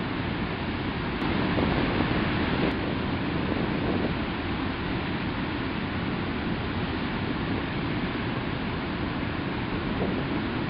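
Steady rushing of fast-flowing stream water churning along the foot of a stone wall, a little louder for a second or so early on.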